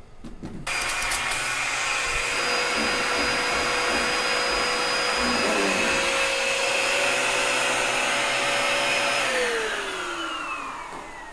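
Vacuum cleaner switched on, running steadily with a whine as it draws air through a long, narrow lint-cleaning hose. Near the end it is switched off and its pitch falls as the motor winds down.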